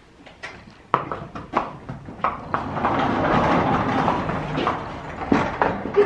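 Horse and pony hooves knocking irregularly on a barn floor as the animals are led, with a stretch of louder rustling noise through the middle.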